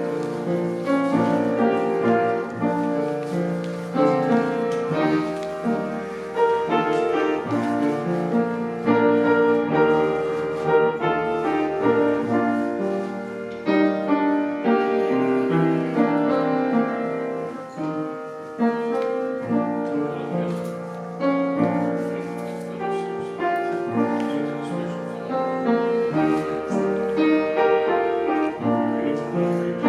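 Piano music, chords and a melody played continuously at a moderate tempo.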